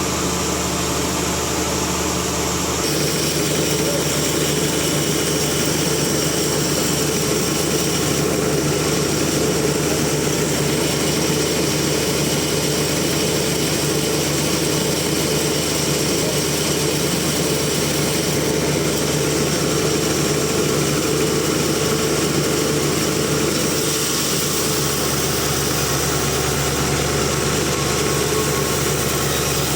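Sawmill machinery running steadily, a continuous engine-like hum with a slight change in tone about three seconds in and again near the end.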